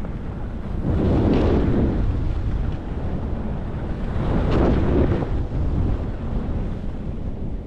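Wind rushing over the camera's microphone while skiing downhill, with the hiss of skis running over groomed snow; the noise swells twice.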